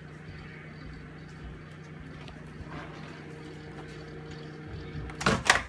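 Microwave oven running with a steady hum, which cuts off near the end, followed at once by a short, loud sharp noise.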